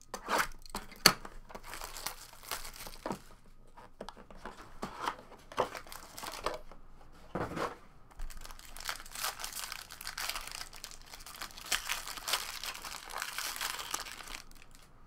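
A foil trading-card pack wrapper being handled and torn open by hand. A few sharp crackles come first, the loudest about a second in, then a longer stretch of dense crinkling in the second half.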